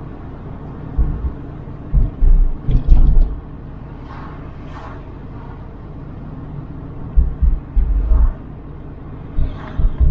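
Car on the move: a steady low rumble of road and engine, broken by several clusters of loud, short, low thumps, about a second in, from two to three seconds in, and again in the last three seconds.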